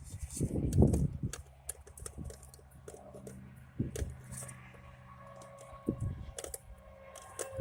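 Irregular metallic clicks and light clatter of hand tools and parts being handled while a distributor cap is fitted, with a louder low thump about a second in.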